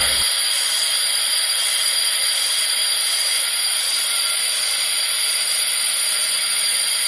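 Steady loud hiss of compressed air venting from a GE 50-ton locomotive's automatic brake valve during a service brake application, as brake pipe pressure is drawn down.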